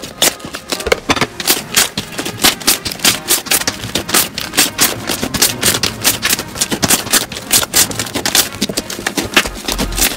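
Thick slime being squeezed and kneaded by hand, crackling with quick, irregular clicks and pops, several a second.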